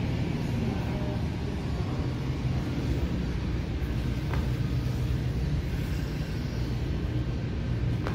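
Steady low background rumble of an indoor concourse, with a faint tick about four seconds in.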